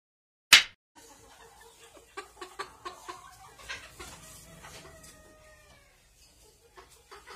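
Rosecomb bantam chickens clucking: a quick run of short clucks, then a longer drawn-out call that falls slightly in pitch. A single sharp click about half a second in is the loudest sound, just before the flock sound begins.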